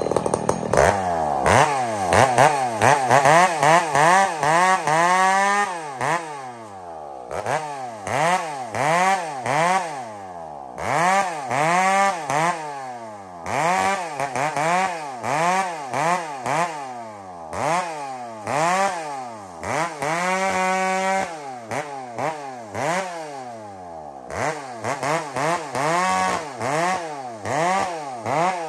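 Two-stroke chainsaw revving in repeated throttle bursts, the engine speed rising and falling about once a second as it cuts through a log. Twice it is held at full speed for a second or so before dropping back.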